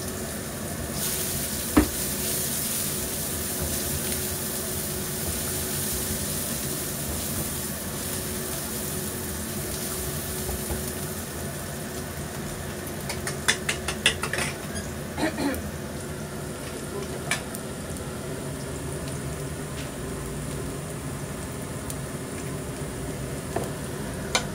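Chopped garlic and onion sizzling in hot oil in a nonstick wok, a steady frying hiss, with a spatula stirring through it. A sharp knock comes about two seconds in, a quick cluster of clicks and knocks around the middle, and a few single clicks later.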